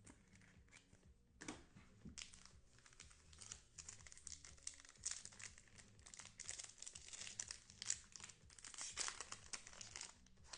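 Trading-card pack wrapper being torn open and crinkled: an irregular run of crackling that starts about a second and a half in and goes on until near the end.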